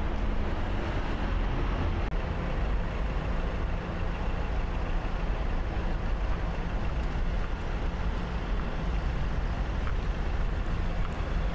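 Road traffic on a city street: a steady, continuous rumble with no distinct single event standing out.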